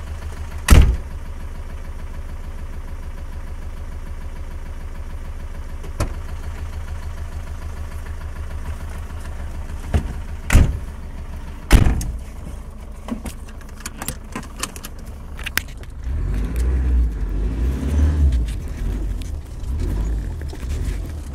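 Land Rover Discovery 200Tdi's 2.5-litre four-cylinder turbodiesel idling with a steady low hum, while car doors slam shut: one loud slam about a second in, a lighter knock later, and two more slams around ten and twelve seconds. A run of small clicks follows, and in the last five seconds the engine rumbles more heavily as the car pulls away.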